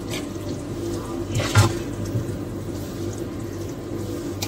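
Seekh kebabs in thick gravy being spooned into a ceramic serving dish, with a few short knocks, over a steady background hum.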